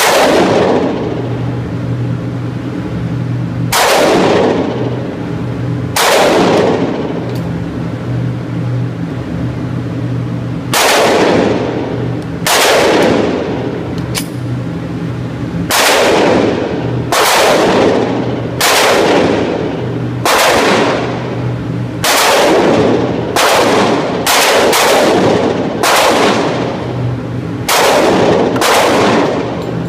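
Pistol shots at an indoor range, about seventeen single shots at uneven intervals of one to two seconds, with a pause of about five seconds after the third. Each shot rings on in the range's echo.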